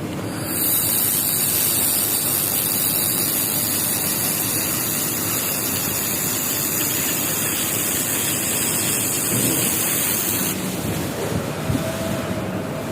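Laser welding machine running with a steady high hiss of gas blowing from the welding head. The hiss starts just after the beginning, cuts off suddenly about ten and a half seconds in, and sits over a constant lower machine hum.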